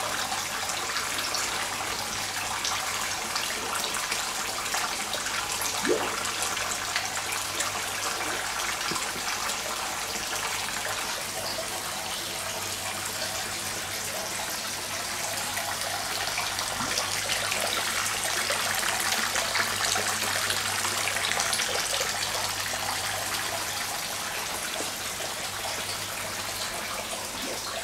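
Water splashing and trickling steadily as a pumped stream sprays from holes drilled in a pipe onto filter matting in a homemade koi-pond bakki shower and pours out of its outlet pipe into the pond, with a steady low hum underneath.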